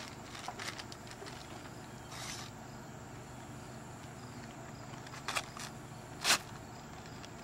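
Gift-wrapping paper being torn and crumpled off a long present in a few short rips, the loudest rip near the end.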